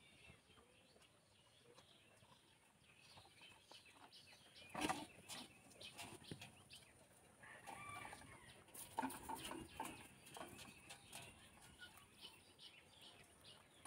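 Near silence outdoors, with scattered faint clicks and rustles and a few short clucking calls from chickens in the middle.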